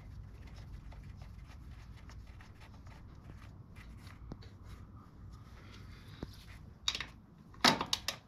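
Faint small ticks and scrapes of a drain plug being turned in by hand, over a low steady hum. Near the end come a few sharper clicks.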